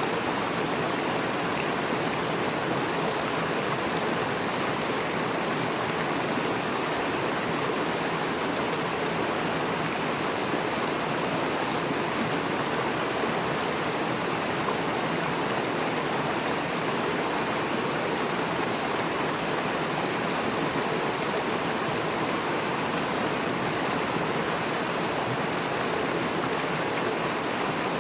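Fast-flowing river rushing over and between rocks, a steady, even rush of water.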